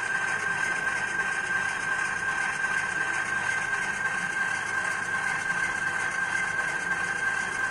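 Sound of a real DF5 diesel locomotive's engine idling steadily, played back by an ESU LokSound 5 decoder through the small speaker of an HO scale model, with a steady high whine over the engine hum.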